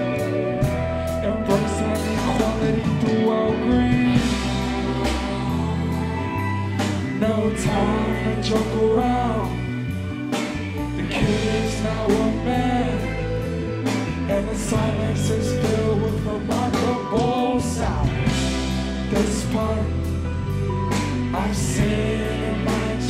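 Live band music with a sung vocal: drums and keyboards over a deep, steady bass line, the voice gliding in pitch through a microphone.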